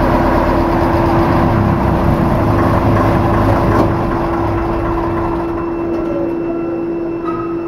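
A large engine running steadily with a constant hum. Its low rumble and hiss die away over the second half, as if it is winding down.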